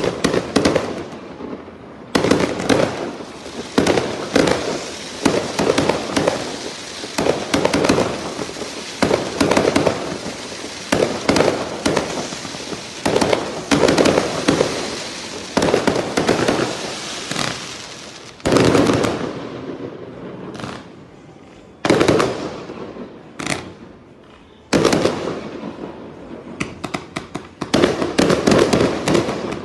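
Fireworks going off in dense, rapid volleys of bangs and crackling, with short lulls about twenty and twenty-three seconds in, each ended by a sudden new barrage.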